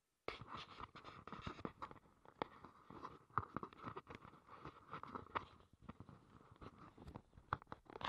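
Handling noise from a handheld camera: faint, irregular rustling with scattered sharper clicks, starting a moment in.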